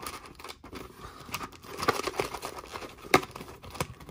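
Cardboard trading-card box and its packs being handled: rustling and crinkling with a few sharp taps, the loudest about three seconds in.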